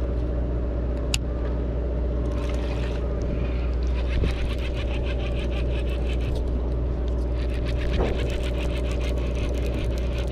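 Steady low hum of a sportfishing boat's machinery running. A single sharp click comes about a second in, and stretches of fast, even ticking come a couple of seconds in and again from about seven seconds on.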